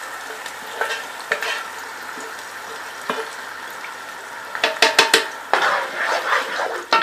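Jaggery syrup sizzling in a pot of hot ghee with whole spices and almonds, stirred with a spoon. A quick run of sharp spoon knocks against the pot comes about two-thirds of the way through, followed by busier scraping.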